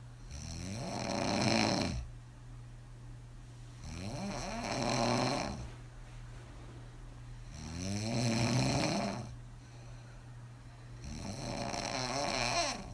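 A woman snoring hard with her mouth open, after several alcoholic drinks: four long, rasping snores, one about every three and a half to four seconds.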